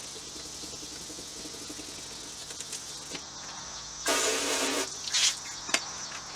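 Wet sanding by hand: 1000-grit sandpaper scrubbing over a plastic car tail panel. One loud scratchy stroke comes about four seconds in and a shorter one a second later, over a steady high hiss.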